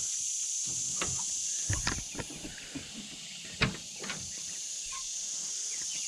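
Chicken coop door being unlatched and opened: a few scattered clicks and knocks, the sharpest a little past halfway, over a steady high chirring of crickets.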